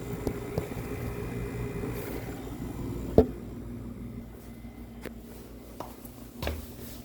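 A steady low mechanical hum with a sharp knock about three seconds in, followed by three fainter knocks and clicks near the end.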